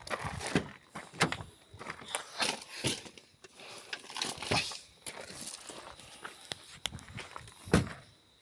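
A person moving about and handling things: irregular knocks, clicks and rustles, with the sharpest knock near the end.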